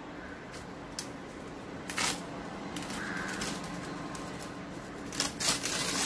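Dry coconut leaflets rustling and tearing as the papery leaf blade is stripped from the stiff midrib by hand: a few short, crisp rasps, the loudest near the end.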